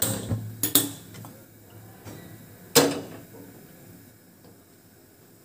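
Kitchen things being handled: a few light clicks and knocks, then one sharp knock with a brief ring about three seconds in.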